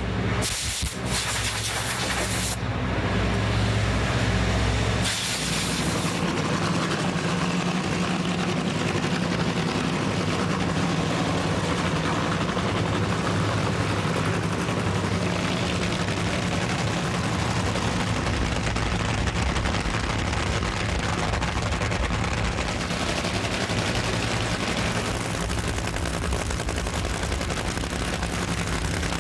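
Supercharged nitromethane Funny Car engines running loud and steady, with a louder surge a few seconds in.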